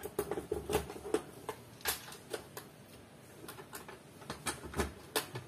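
Key turning in the mechanical override lock of a small electronic safe and the handle being worked as it is unlocked: a string of irregular metallic clicks and clacks, a few louder ones about two seconds in and near the end.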